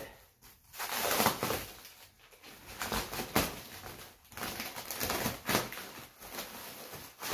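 Clear plastic stretch wrap crinkling and rustling in uneven bursts as it is unwound and pulled off a bicycle.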